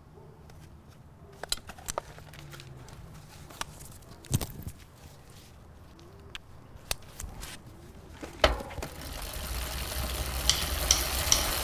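Scattered small clicks and rustles as a bicycle helmet is handled, put on and its chin strap fastened. A low rushing noise builds over the last few seconds.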